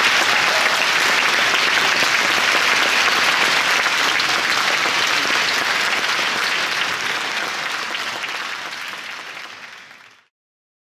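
Concert-hall audience applauding, the applause tapering off and fading out to silence near the end.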